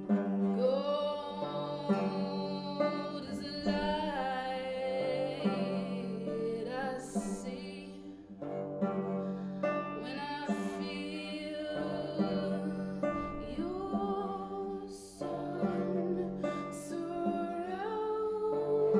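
A woman singing a melody to open-back banjo accompaniment, over steady low notes that change every second or two, in a concrete-block stairwell.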